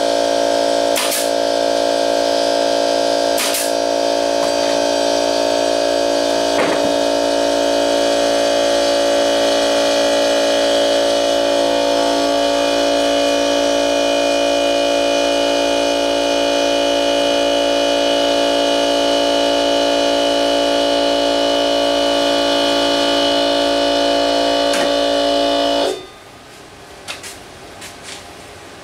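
Shop air compressor motor running with a steady hum, topping up pressure for a nail gun, then shutting off abruptly near the end. Two sharp nail-gun shots crack over it in the first few seconds.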